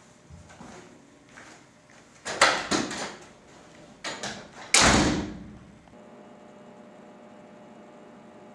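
Light knocks and thuds of someone getting up and moving, a cluster of sharp knocks, then a few clicks and a wooden door slamming shut about five seconds in, its bang ringing out for about a second. A faint steady hum follows.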